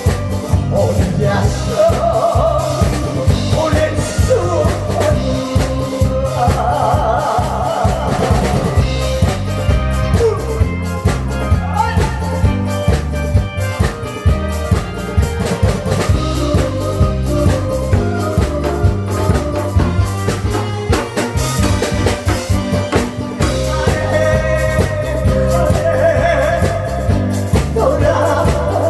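A trot song sung by a man over a backing track with a steady drum beat, played through a loudspeaker system; held notes are sung with a wide vibrato.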